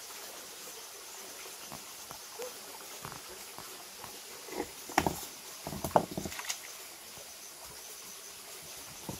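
Hands splashing and scooping in shallow stream water between rocks, with a few sharp splashes about halfway through, over a steady background hiss.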